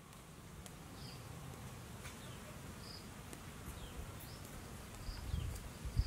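Quiet outdoor ambience: a short high chirp repeats about once a second, each followed by a faint falling note, over a steady low rumble. A couple of soft low thuds come near the end.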